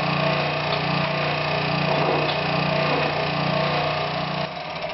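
A motor running with a steady hum, shutting off near the end.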